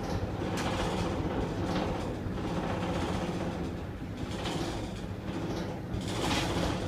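Steady low rumble and rattle inside a Ngong Ping 360 gondola cabin riding its cable in strong wind, with several brief hissing swells of wind buffeting the cabin.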